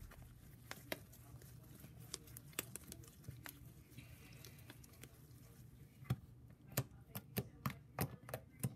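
Fluffy, stretchy slime being squeezed and kneaded by hand, giving soft clicks and pops: a few scattered ones at first, then coming two or three a second over the last few seconds.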